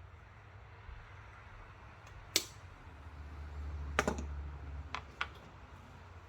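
Sharp clicks and taps of wire being handled on a workbench, about four of them spread over the last few seconds. A low rumble swells underneath in the middle and fades.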